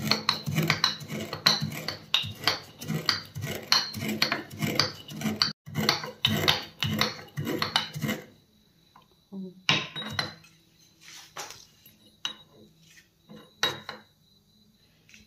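Metal pestle pounding roasted panch phoron seeds in an aluminium mortar: quick metallic knocks about three a second, thinning out after about eight seconds to a few scattered taps.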